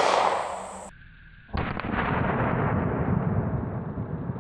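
A 9mm pistol shot's echo dies away in the first second. Then comes a slowed-down replay of the shot and the bullet striking the steel boat anchor: a sudden deep boom about a second and a half in, followed by a long rumbling fade.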